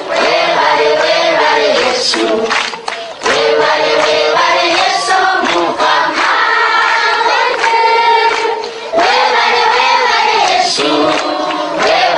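A group of children singing together in chorus, a sustained song of young voices.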